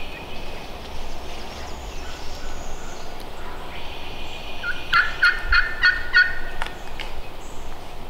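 Turkey calling: a quick run of six or seven sharp notes, about four a second, lasting about a second and a half, a little past the middle.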